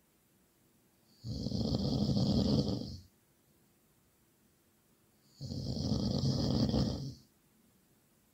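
Very loud snoring: two long snores, each lasting about two seconds and spaced about four seconds apart, with quiet breathing pauses between.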